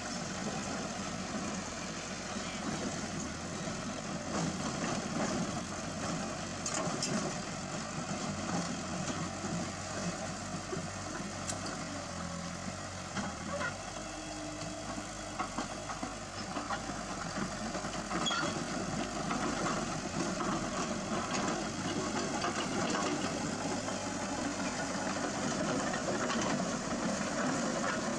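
Heavy machine's engine running steadily, with a few short knocks.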